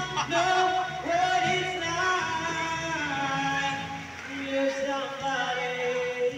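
Music with a singing voice: a song with held, sliding vocal notes.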